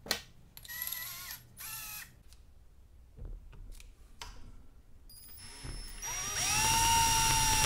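Cordless drill: two short bursts of the motor in the first two seconds while a long drill bit is fitted, then a few faint clicks. About six seconds in, the drill spins up with a rising whine and runs steadily as the bit bores down into the top of a bamboo stalk to hollow it out.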